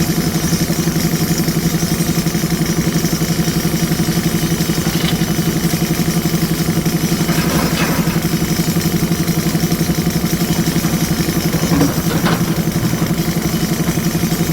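Diesel engine of a JCB 3DX Super backhoe loader running steadily, with a few faint knocks about halfway through and near the end.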